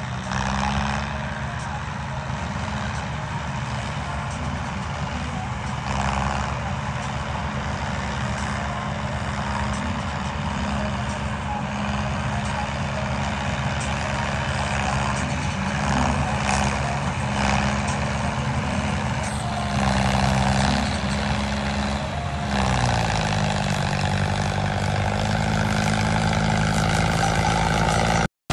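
Model John Deere tractor's drive motor running steadily as it pulls a loaded trolley. The pitch drops and settles at a new level near the end.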